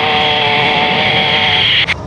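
Jet engines of Blue Angels F/A-18 Hornets flying past: a loud, steady whine over rushing jet noise, cut off suddenly near the end.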